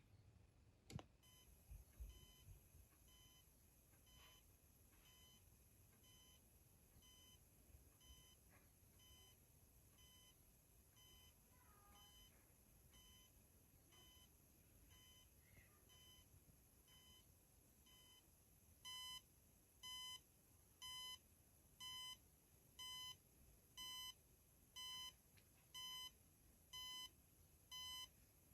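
Emerson WBS12 alarm beeping in short single beeps about once a second, faint at first and becoming clearly louder about two-thirds of the way in. A sharp click sounds about a second in.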